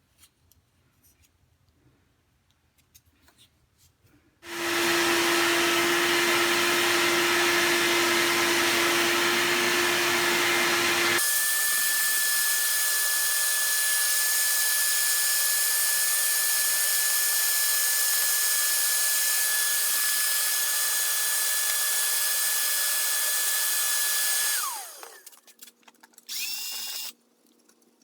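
Electric power tool running continuously for about twenty seconds. Its motor drones at a lower pitch at first, then at a higher steady whine, and winds down with a falling pitch near the end. A few light handling clicks come before and after it.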